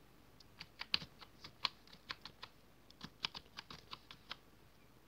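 Computer keyboard typing: a run of quick, faint keystrokes entering a password, with a short pause partway through, stopping about a second before the end.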